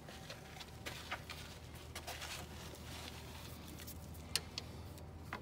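Faint handling noise of hands working rubber hoses and plastic zip ties: light scattered rustles and small clicks, with one sharper click about four seconds in.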